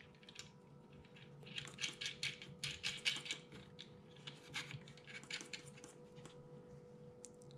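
Faint, irregular clicks and scrapes of the buttstock's big thumb nut being threaded on and turned by hand, metal parts knocking lightly as it is tightened.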